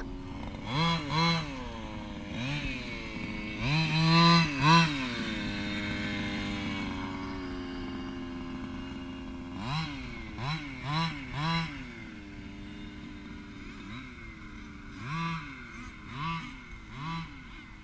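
Losi DBXL RC buggy's small two-stroke gas engine revving in short bursts, the pitch rising and falling with each blip of the throttle, and holding a steady note for a few seconds between them. The loudest revs come about four seconds in.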